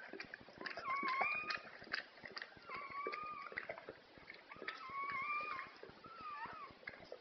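Newborn Rottweiler puppies crying in thin, high squeals, about four cries each under a second long, with light handling clicks and rustles throughout.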